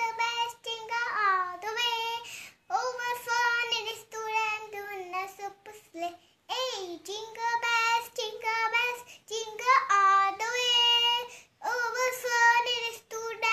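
A young girl singing a Christmas carol alone, with no accompaniment. She sings in phrases separated by short pauses for breath.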